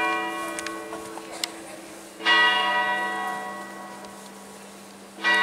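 Church bell tolling slowly, about three seconds between strokes. The hum of one stroke dies away, a new stroke rings out a little over two seconds in, and another comes right at the end. Each stroke starts sharply and rings on, fading slowly.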